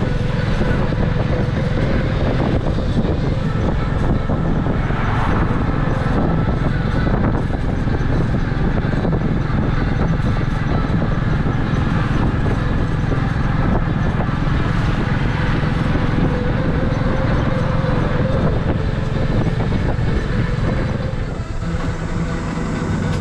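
Motorcycle-drawn tuk-tuk under way, its engine running steadily under a heavy rush of road and wind noise; it eases slightly near the end.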